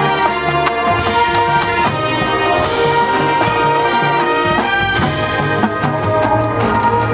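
Marching band brass section playing a melody of held chords, with regular low pulses and percussion strokes underneath.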